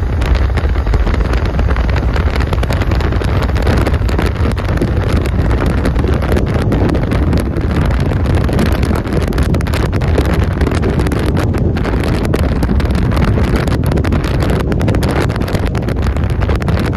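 Wind rushing and buffeting over the microphone from a car moving at speed, with road noise. It is a loud, steady rumble that stays even throughout.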